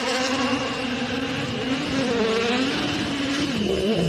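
Engine-like buzzing drone accompanying a toy race car, its pitch wavering and dipping a couple of times.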